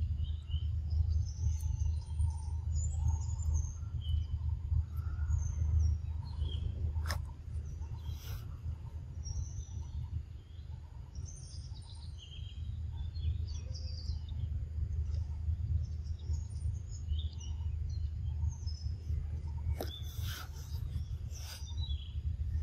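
Wild birds chirping in scattered short calls over a steady low rumble, with a few sharp clicks about seven seconds in and again near the end.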